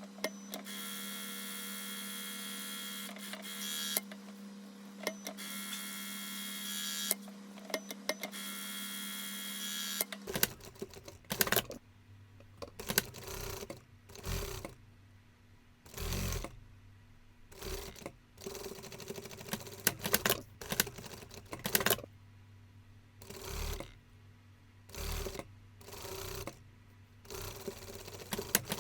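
Sewing machine running steadily with a motor hum for about ten seconds. It then changes suddenly to short stop-start runs of machine sound, with clicks in the gaps.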